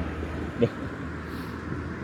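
Steady hum of distant city traffic, with one short sharp sound about half a second in.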